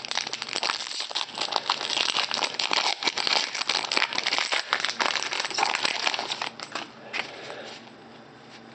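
Foil wrapper of a basketball trading-card pack being torn open and crumpled in the hands: dense crinkling and crackling that dies down about two-thirds of the way through, leaving only faint handling sounds.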